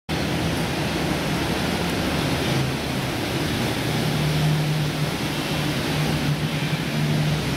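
Steady rushing background noise with a faint low hum that comes and goes.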